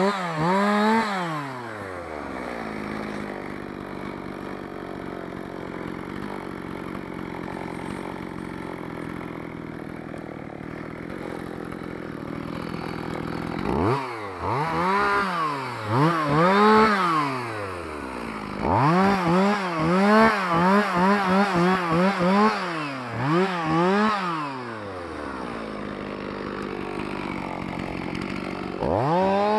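Two-stroke chainsaw revved in short throttle blips, each rising and falling back, then settling to a steady idle for about ten seconds. About half-way through it is blipped again, with a quick run of short revs, idles once more, and is revved again near the end.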